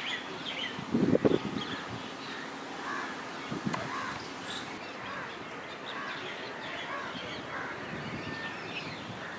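Birds calling in the open, many short repeated calls overlapping throughout, with a brief louder low sound about a second in.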